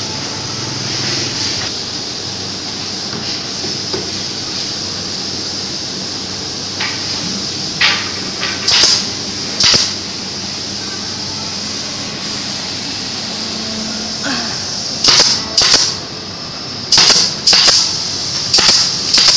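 Pneumatic brad nailer firing brads into the edge of a wooden cabinet panel: short, sharp air-driven shots, mostly in pairs, about eight in all, most of them in the last few seconds, over a steady hiss.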